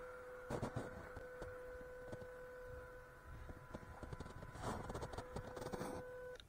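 Stock brushed motor and geared drivetrain of an MN78 1/12 RC crawler whining at a steady pitch as it drives through snow. Crackling crunches of the tyres in the snow come about half a second in and again from about four and a half seconds. The whine cuts out just before the end.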